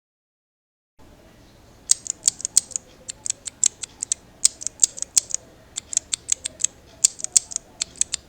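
Typing on a mechanical keyboard with Outemu switches: a quick, irregular run of sharp key clicks, several a second. It starts about two seconds in, after a second of dead silence.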